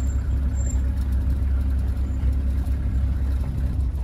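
Safari game-drive vehicle's engine idling: a steady low rumble.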